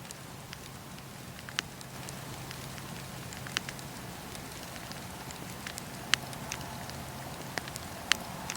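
Wood fire in a fireplace crackling: a steady soft hiss with irregular sharp pops, the loudest coming about every two seconds.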